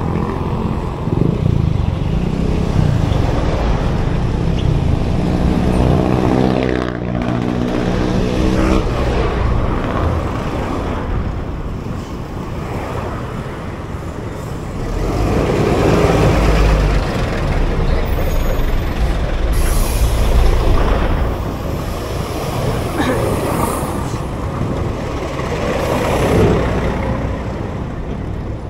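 Heavy street traffic close around a bicycle: engines of buses, jeepneys, motorcycles and cars running and passing. About seven seconds in, a passing vehicle's engine note slides in pitch. About two-thirds of the way through come a few short, sharp hisses.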